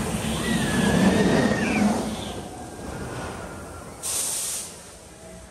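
Intamin launch coaster train rushing along the steel track and up the tower. It makes a rumbling rush that swells to a peak a second or two in and then fades, with a short hiss about four seconds in.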